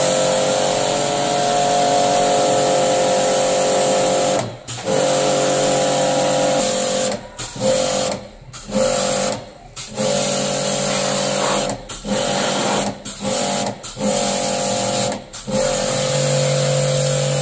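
Portable electric pressure washer running, its motor humming under the hiss of the water jet as it washes the compressor and condenser coil of a window air conditioner during a jet service. The motor and spray cut out briefly about eight times, each time starting again.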